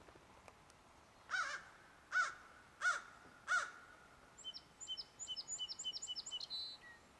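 Four loud bird calls in a row, about two-thirds of a second apart, followed by a quick run of short, high-pitched chirping notes lasting a couple of seconds.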